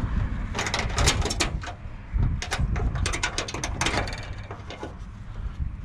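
Irregular clanks, clicks and rattles of scrap being shifted and packed into a load, in quick clusters that thin out near the end.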